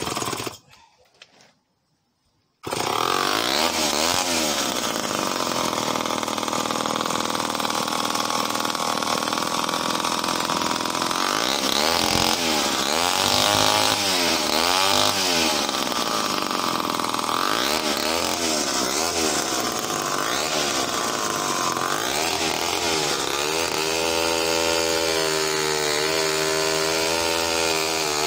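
Homelite C51 77cc two-stroke chainsaw running hard, starting abruptly about two and a half seconds in. Its engine pitch dips and recovers again and again as it cuts under load through hard, knotty wood.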